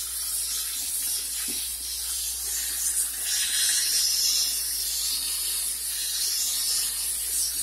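H2O Mop X5 handheld steam cleaner jetting steam from its nozzle against a sink to lift rust stains: a steady hiss that swells a little around the middle.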